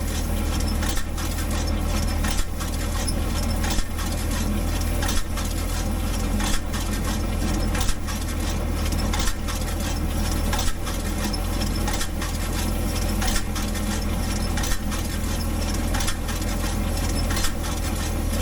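Tractor engine running steadily, with a sharp click repeating about every second and a half.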